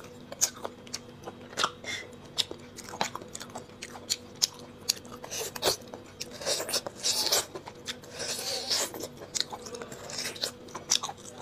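Close-miked mouth sounds of a person eating bone marrow: sucking at the hollow bone pieces, with many sharp wet smacks and clicks and a couple of longer slurps past the middle.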